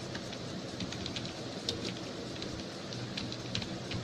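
Computer keyboard keys clicking irregularly as a name is typed into a form, over a steady background hiss and faint hum.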